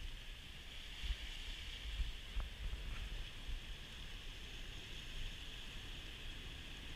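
Storm wind buffeting the microphone in gusts, over a steady rushing hiss of rough sea.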